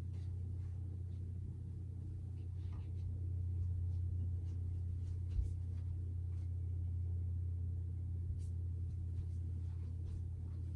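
A steady low hum of room noise, with faint light clicks and one soft low knock about five seconds in, as small objects are handled on a dresser.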